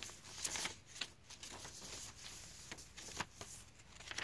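Paper pages of a thick handmade journal, made from old book pages, being turned and handled: dry rustling of paper with several short, sharp flicks as the pages go over.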